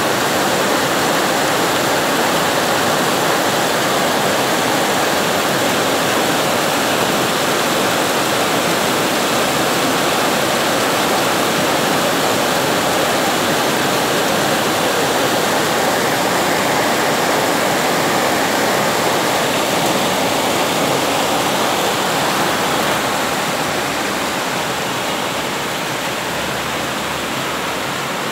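Heavy rain falling steadily on a corrugated roof, with rainwater gushing out of a plastic drain pipe. The sound eases a little about three-quarters of the way through.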